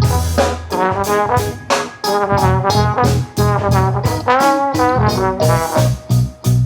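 Live jazz-rap band playing an instrumental passage: brass horns carry the melody over bass and drums, with drum hits several times a second.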